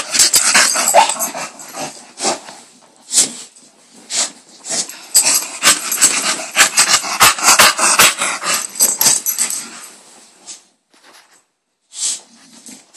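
A bulldog playing excitedly on a bed, making rough dog noises as it digs and burrows into a comforter, with rustling of the fabric. The noise is busy for about ten seconds, then mostly stops, with two short bursts near the end.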